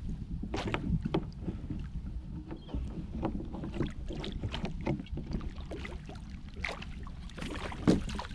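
A big redfish thrashing at the surface beside a kayak: repeated short splashes and knocks against the hull, with the loudest splash near the end as the fish breaks free. Wind rumbles on the microphone underneath.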